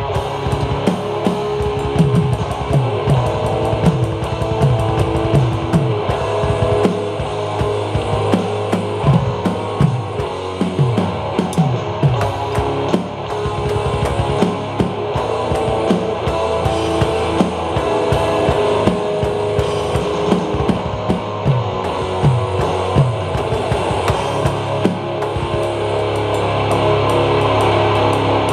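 Tama drum kit played along to a recorded rock song with guitar, the drum hits coming thick and fast.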